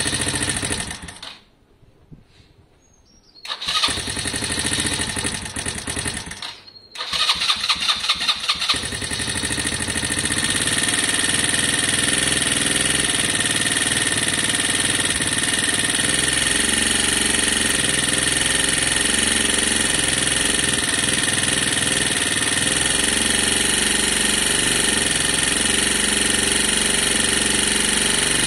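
Lexmoto Valiant motorcycle engine cranked on the electric starter in three short tries with pauses between. On the third try, about nine seconds in, it catches and settles into a steady idle on its newly converted carburettor.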